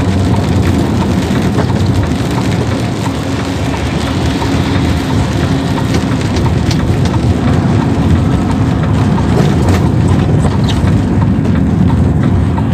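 Heavy truck's diesel engine running steadily, heard inside the cab while driving on a wet road, with tyre noise and rain ticking on the windscreen.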